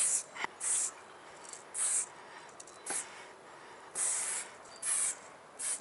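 Aerosol spray-paint can spraying in short hissing bursts, about one a second, as lines are drawn on a wooden hoarding. The first burst is the tail of a longer spray.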